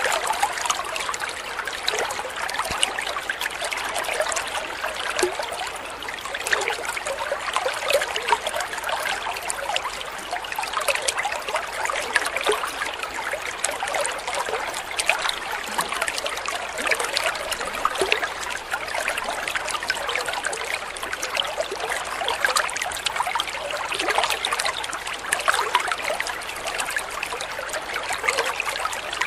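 Water trickling and splashing steadily as a small spout pours into a koi pond.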